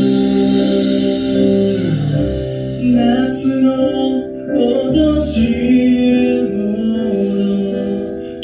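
Live band playing, with sustained keyboard and electric guitar chords over bass guitar. A male voice comes in singing about three seconds in.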